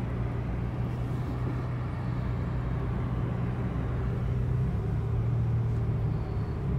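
Car driving, heard from inside the cabin: a steady low engine hum with road and tyre noise.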